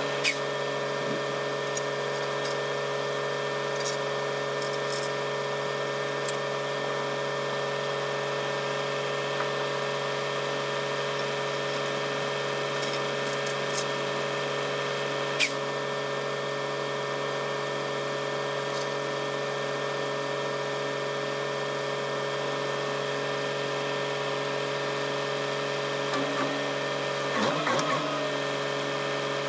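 Engine idling steadily, a drone with a whine held at one pitch throughout. Two sharp metallic clinks, one right at the start and one about halfway through, come as tow chain is handled.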